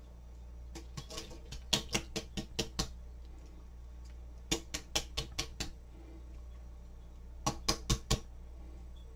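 Three quick runs of sharp taps, a few a second: about nine near the start, six in the middle and five near the end, over a steady low hum.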